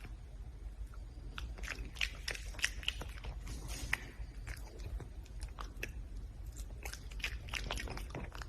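Red panda chewing and crunching food: a rapid, irregular run of crisp bites and crunches, with a steady low hum underneath.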